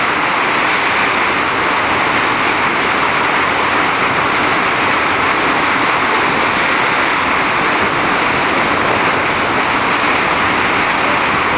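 Churning river water and broken ice floes rushing and grinding along the hull of a ship forcing its way through river ice: a loud, steady rushing noise.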